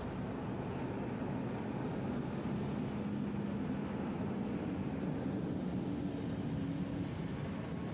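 Fire engines' diesel engines in a slow procession passing one after another: a steady engine drone without sirens.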